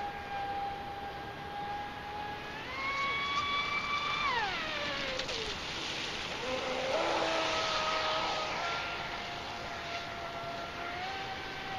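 Traxxas Spartan RC speedboat's brushless electric motor whining at high revs on a 6-cell LiPo pack, over the hiss of water off the hull. The pitch climbs about three seconds in, drops steeply a second or so later, holds lower for a few seconds, then climbs again near the end.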